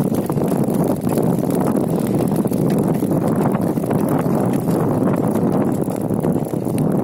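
Wind rushing over the microphone of a moving two-wheeler, a steady low rumble.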